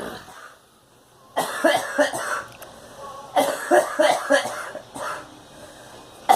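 A girl coughing in two fits of quick, repeated coughs, the first starting a little over a second in and the second about two seconds later.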